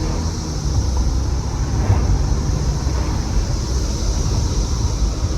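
Steady road and engine rumble of a moving car heard from inside the cabin, with a continuous high-pitched chorus of periodical cicadas from the trees outside.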